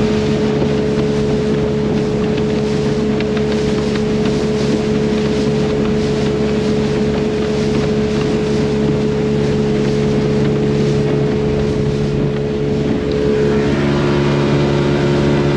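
Open motorboat's engine running steadily at speed, with water rushing past the hull and wind on the microphone. The engine note changes about two seconds before the end.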